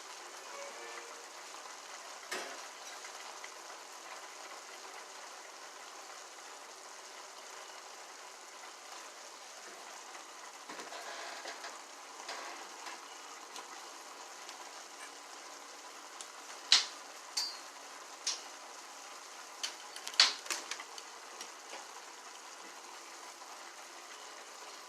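Food sizzling steadily in a pan on the stove, with a few sharp clicks and knocks of kitchenware, the loudest about two-thirds of the way through.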